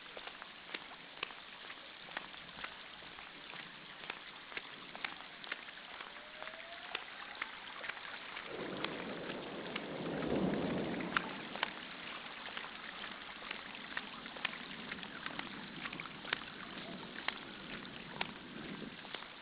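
Heavy rain pattering, with many separate sharp drop impacts. A roll of thunder rumbles up about eight seconds in, peaks a couple of seconds later and dies away.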